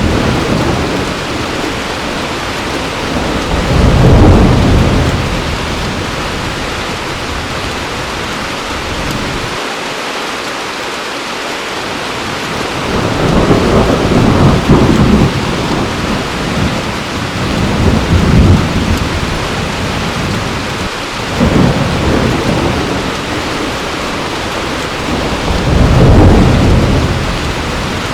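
Heavy rain falling steadily, with rolls of thunder swelling up and dying away about five times.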